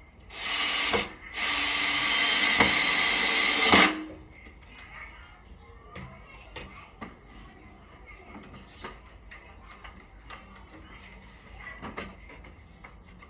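Power tool run in two bursts: a short one of about half a second, then a longer one of about two and a half seconds that cuts off sharply. After it come scattered light clicks and taps.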